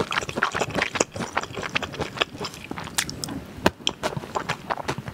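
Close-miked chewing of spicy fire noodles, a fast run of wet mouth clicks, with a spoon scraping and clinking in a glass bowl.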